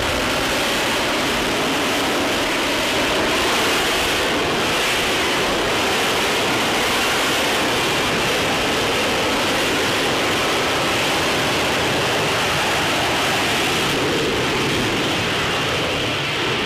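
F-35B's jet engine and lift fan running at hover power: a loud, steady rushing jet noise that holds level throughout.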